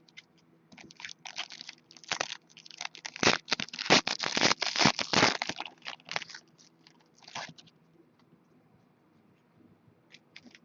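Foil wrappers of trading-card packs crinkling and tearing as packs are torn open, a dense run of crackles in the middle that dies down to a few light clicks.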